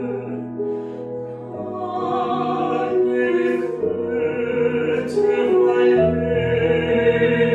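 Classical art-song duet for a woman's and a man's voice, sung in operatic style with piano accompaniment, with long held notes sung with vibrato.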